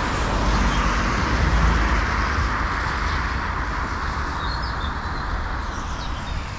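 Road traffic: a passing car's tyre and engine noise, loudest about a second and a half in and slowly fading.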